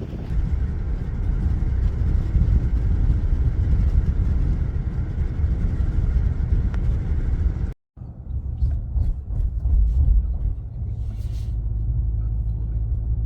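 Low, steady rumble of a moving vehicle, cut off for an instant about eight seconds in and then running on with a few faint clicks.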